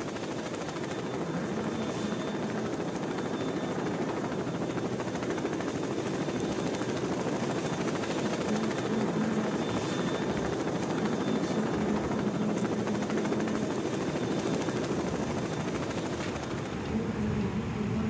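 Helicopter rotor and engine noise: a steady, even drone.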